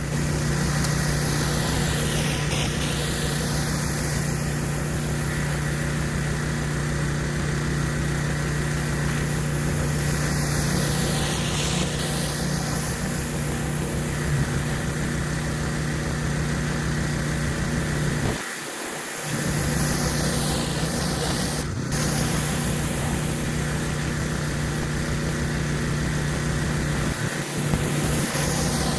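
Gas pressure washer engine running steadily under the hiss of high-pressure water from a spinning surface cleaner on concrete. The engine sound dips briefly about two-thirds of the way through.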